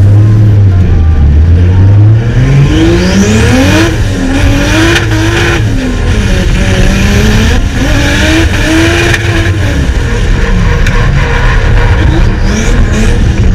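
Drift car's engine revving hard while the car slides: the pitch climbs about two seconds in, then rises and falls repeatedly as the throttle is worked, with tyres squealing under it.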